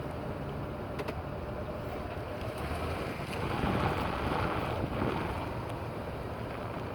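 2017 Chevrolet Silverado pickup running, with wind on the microphone; a single sharp click about a second in, and the sound swells briefly past the middle.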